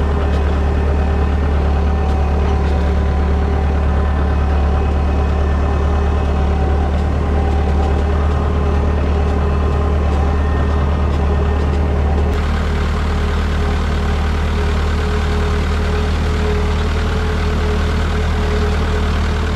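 Tractor engine running steadily with a strong low hum while it drives an air-blast orchard sprayer that is blowing spray into the trees.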